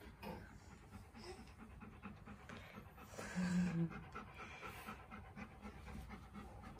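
Alaskan malamute panting, a run of quick breaths.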